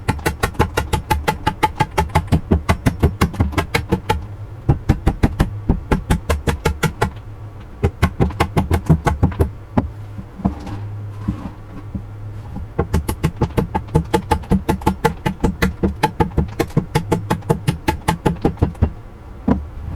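Background music with a steady percussive beat, about four hits a second over a low bass line; the beat drops out briefly twice.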